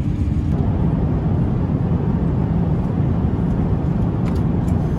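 Steady low cabin noise of an Airbus A350-900 airliner in flight, engine and airflow noise heard from a passenger seat. A few faint clicks near the end.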